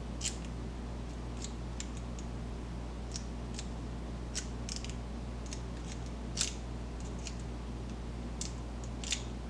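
Lock pick and tension tool working the pins of a padlock: faint, irregular metallic clicks and ticks, the two clearest about six and nine seconds in, over a steady low hum.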